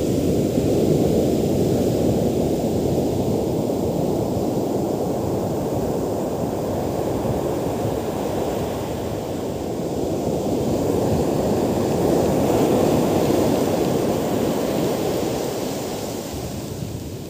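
Rough surf breaking and washing up the sand: a steady rushing that swells and ebbs, easing off near the end.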